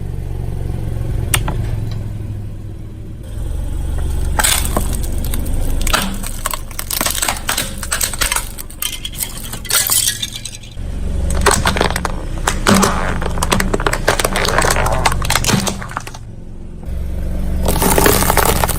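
A car tyre rolling over and crushing brittle objects: long runs of cracking and crackling snaps over a low, steady engine hum. There is a single sharp crack about a second in. The crunching starts about four seconds in, breaks off briefly near the end, then picks up again.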